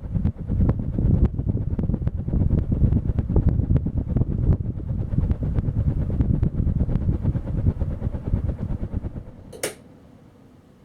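Emerson Keane ceiling fan running, its downdraft buffeting the microphone as a low rumble with frequent crackles. A sharp click near the end, after which the rumble stops and only a faint hiss remains.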